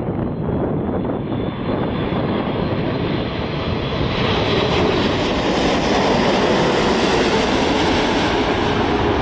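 Jet noise from the four engines of a Boeing 747-8 on landing approach, passing low overhead. The noise grows louder and brighter from about four seconds in as the jet comes over.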